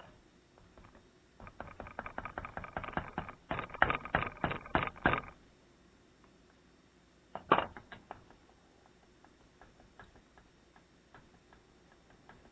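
A rapid run of clicks and taps for about four seconds, then one sharp knock a couple of seconds later: a stuck part on a Honda CB450 cylinder head being wedged and worked loose.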